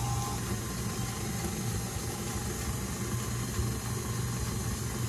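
KitchenAid tilt-head stand mixer running steadily, its flat beater churning thick peanut butter cookie dough in the steel bowl, with a low motor hum.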